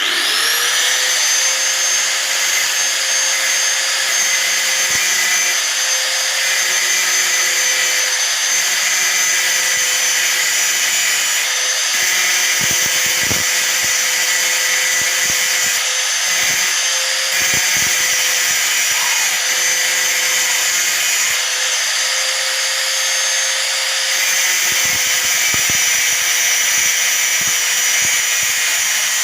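Electric hand angle grinder switched on, its pitch rising as it spins up over about the first second, then running steadily at full speed with a high whine and hiss.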